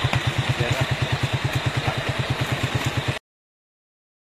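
A motorcycle engine idling with a rapid, even putter of about a dozen beats a second. It cuts off suddenly about three seconds in.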